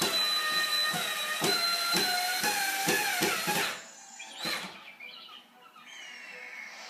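Power drill running into drywall, its motor whine steady and then sagging in pitch under load, stopping after about three and a half seconds.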